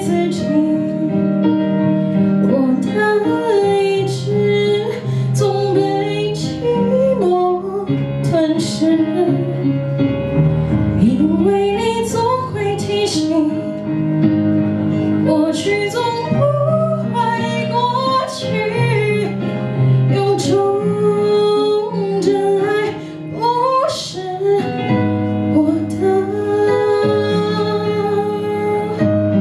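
A woman singing a slow pop song into a microphone, her voice amplified over an instrumental backing with sustained chords and plucked-string accompaniment.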